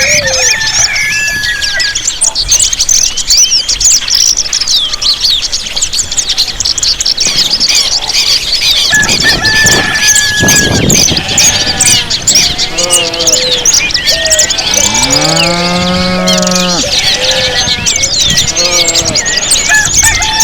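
Many birds chirping and whistling at once in a dense, continuous chorus. About three quarters of the way through, a farm animal gives one long, low call lasting about two seconds.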